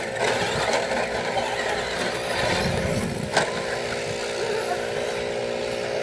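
RC short course trucks racing around a dirt track, a steady mix of motor and tyre noise with a few steady tones, and a sharp knock about three and a half seconds in.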